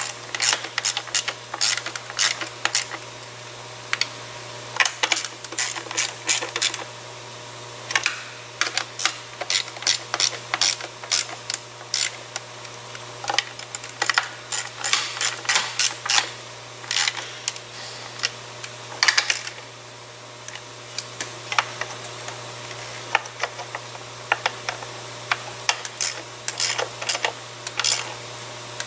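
Hand ratchet clicking in quick runs with short pauses between, as the intake manifold bolts are run in.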